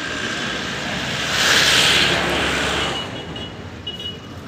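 Traffic noise from a passing vehicle: a steady rush that swells loudly about a second and a half in and fades again by three seconds in.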